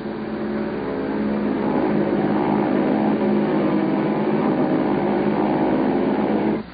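WWII-era fighter plane's piston engine droning in flight, swelling louder over the first couple of seconds and then holding steady, before cutting off suddenly near the end.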